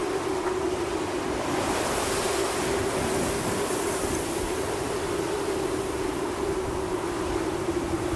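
Howling wind sound effect: a steady rushing noise with a low wavering howl running through it, the hiss growing brighter about a second and a half in.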